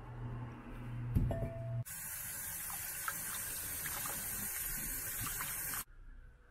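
Kitchen tap running into a glass bowl of kumquats while hands rub the fruit clean, water splashing. It starts abruptly about two seconds in and cuts off suddenly about four seconds later; a single knock comes just before it.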